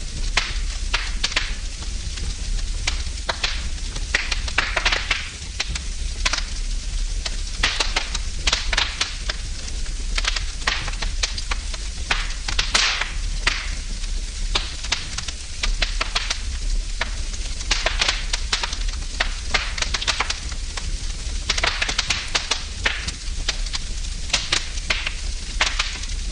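Wood fire burning in a fireplace, crackling and popping at irregular intervals over a steady hiss and low rumble.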